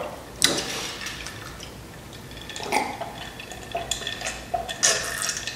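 A man drinking liquid from a glass jar: the liquid sloshes, and he takes several gulps in the second half.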